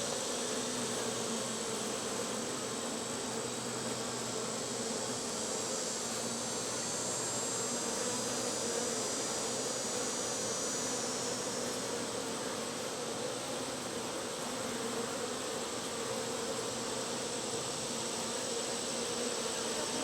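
Honey bees buzzing steadily: the hum of a colony on an open hive.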